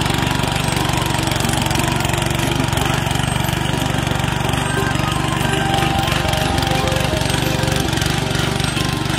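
Small air-cooled petrol engine of a walk-behind power tiller running steadily at working speed with a fast, even pulse, its rotary tines churning soil.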